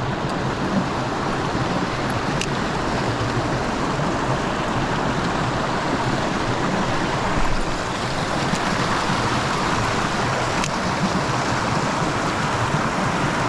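Mountain stream water running steadily, with a few faint sharp clicks in between.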